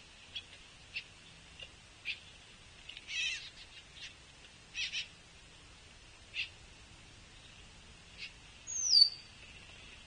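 Juvenile pileated woodpecker begging with short, hoarse calls at irregular intervals, about ten in all, one longer rasping call about three seconds in. Near the end a single sharp, falling call is the loudest sound.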